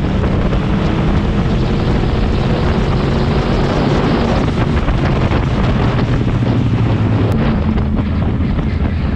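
Sport bike engine running at riding speed, its pitch shifting as the revs change, under heavy wind noise on the microphone.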